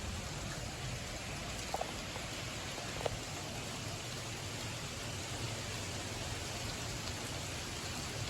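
Heavy thunderstorm rain falling steadily, a constant hiss with a couple of sharper drop ticks about two and three seconds in.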